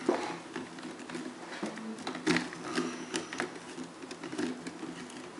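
Hard plastic parts of a toy lightsaber clicking and rattling as the blade is twisted and pushed onto the hilt: irregular small clicks, with a sharper knock a little over two seconds in.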